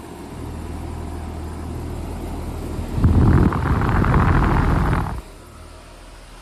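Outdoor heat pump units running steadily in second-stage cooling with a low hum. About three seconds in, a much louder rushing noise lasts about two seconds and then cuts off suddenly.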